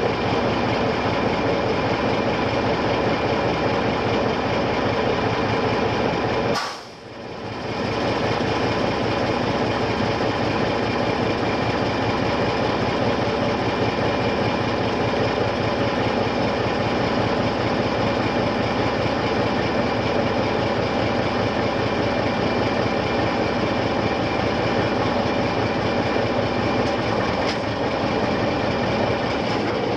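The heavy diesel engine of a Demag AC 335 all-terrain mobile crane runs steadily under load, with a brief drop in level about seven seconds in.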